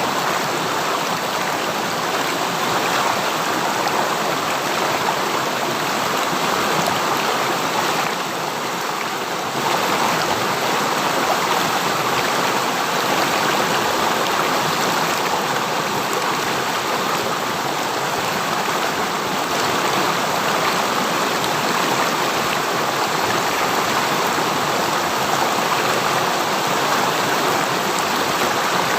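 River water flowing steadily, an even rushing noise that eases off slightly for a moment about eight seconds in.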